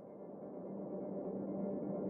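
Swelling drone of an animated logo intro: a dense bed of steady low tones that grows steadily louder.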